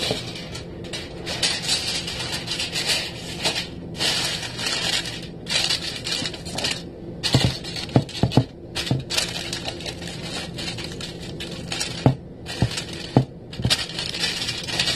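Aluminium foil crinkling and rustling in repeated bursts as it is pressed and crimped down over the edges of a baking dish, with a few sharp knocks about halfway through and again later.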